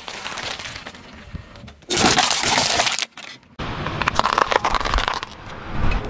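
Car tyre rolling over and squashing a cream-filled pastry on asphalt, with a loud squelching rush of noise for about a second, then, after a short break, candy canes cracking and snapping under the tyre in a quick run of sharp cracks.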